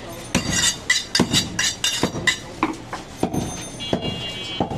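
A butcher's steel cleaver striking the wooden chopping block in a quick run of sharp metallic clinks and knocks, about four or five a second, each ringing briefly; the strikes thin out after about two seconds, and a short high ringing tone sounds near the end.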